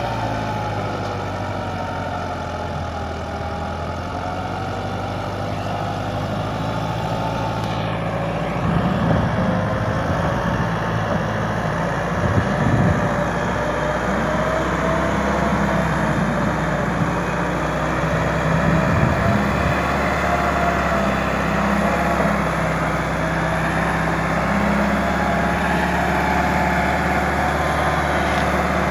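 Massey Ferguson 385 tractor's four-cylinder diesel engine running hard under heavy load, hauling a trolley piled with sugarcane. The engine note gets louder and heavier about eight seconds in, with some rises and falls as it labours.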